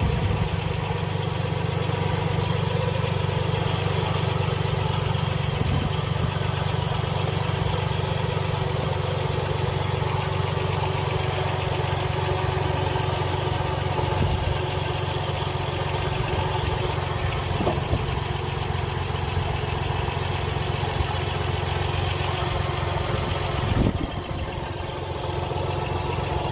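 Car engine idling steadily with a continuous mechanical noise from a failing water pump, which is leaking antifreeze. The level dips slightly near the end.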